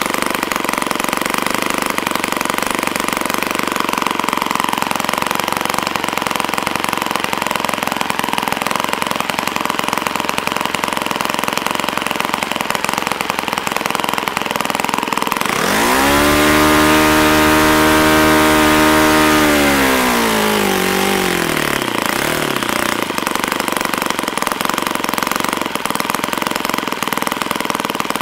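YS F-120 single-cylinder four-stroke glow engine swinging a 15x8 propeller, idling steadily. About halfway through it revs up sharply, holds high for about four seconds, then winds back down to idle.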